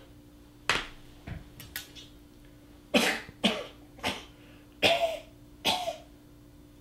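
A man coughing: a run of five harsh coughs from about three seconds in. Before them comes a sharp knock about a second in, then a few small clicks.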